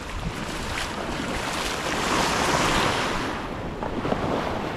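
Small waves washing up a sandy, pebbly beach. One wash swells about two seconds in and fades a second or so later, with wind rumbling on the microphone.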